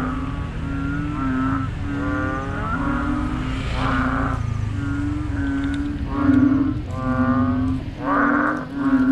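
A dense chorus of frogs calling loudly: many overlapping moaning calls, each under a second, follow one another over a steady low drone. The calls sound like cows or pigs.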